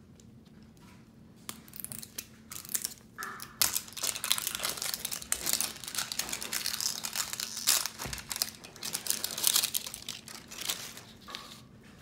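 Plastic wrapping of an LOL Surprise ball being peeled and crinkled by hand: a dense crinkling and crackling that starts about a second and a half in and stops shortly before the end.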